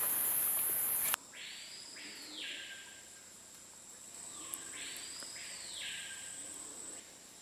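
Forest insects: a loud high buzzing stops abruptly about a second in, leaving a steady high insect whine. Over it an unseen animal gives two long calls, each about a second and a half, rising then falling, near two and five seconds in.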